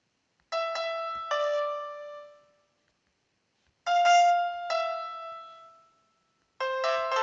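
Background music: piano-like keyboard notes played in three short phrases, each ringing out and fading away, with silence between the phrases.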